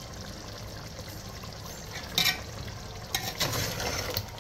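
A steel ladle stirring simmering chicken gravy in a metal biryani pot, with a sharp clack of metal on the pot about two seconds in and a run of scrapes and clinks near the end, over steady bubbling of the liquid.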